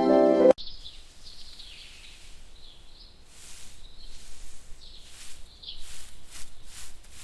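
Birds chirping: short high chirps and twitters over a faint outdoor ambience. Soft piano music cuts off abruptly about half a second in.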